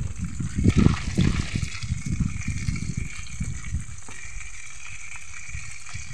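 A large catfish deep-frying in hot oil in a wok, a steady sizzle. Low rumbling thumps sound over it in the first few seconds, then die down.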